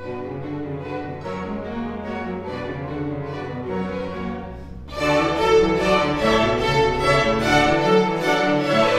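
String orchestra of violins and cellos playing. A softer passage over a held low note swells into a louder, fuller passage about five seconds in.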